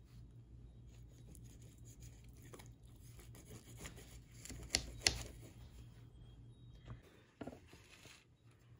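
Rolling pizza cutter wheel crunching through baked pizza crust and scraping against the pan beneath, in repeated strokes with two louder scrapes around the middle.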